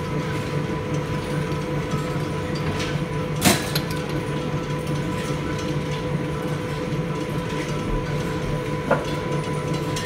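Steady machine hum in a metalworking shop, with two sharp metallic knocks, about three and a half seconds in and near the end, as a steel workpiece is handled in the four-jaw chuck of a stopped lathe.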